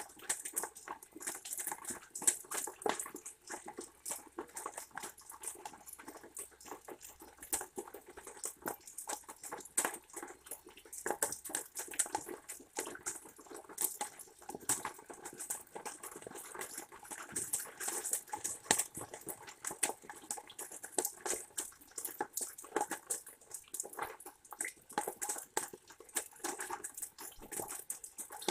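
Rain dripping and pattering close by, mixed with the crackle of a red squirrel rummaging in sunflower seeds in a wooden feeder box: a dense run of irregular small clicks.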